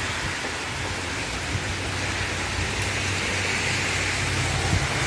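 Heavy rain falling steadily, pattering on pavement and parked cars.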